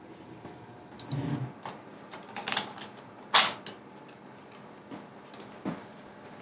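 Spring inspection machinery: a sharp electronic beep with a click and a short low motor hum about a second in, then two short hissing bursts and a few faint clicks.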